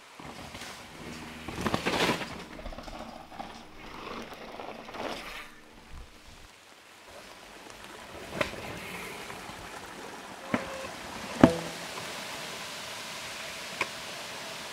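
Mountain bike ridden past on a dirt forest trail: tyres rolling and crunching over the ground with the bike rattling, loudest about two seconds in and fading by about five seconds. Later a few sharp knocks from the bike ring out over a steady hiss, the loudest a little past the middle.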